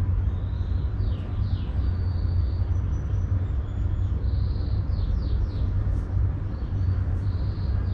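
A steady low rumble with small birds chirping in the background: a few quick falling chirps about a second in, again around five seconds and near the end, and some thin high notes between.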